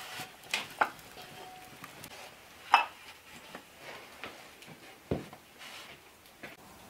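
Glazed earthenware cups and their earthenware tray clinking as they are handled, a few sharp clinks with the loudest nearly three seconds in, then a duller knock about five seconds in as the tray is set down on a wooden table.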